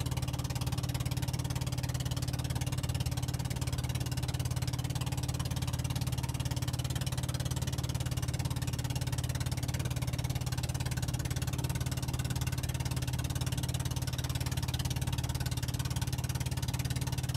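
Small fishing boat's engine running steadily at a constant speed: an even low drone with a fast regular pulse, over a steady hiss.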